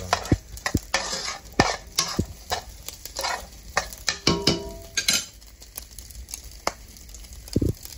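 A metal spoon scraping and tapping against a frying pan as sliced Chinese sausage is stirred, over a light sizzle of frying. The stirring pauses for about two seconds past the middle, then starts again near the end.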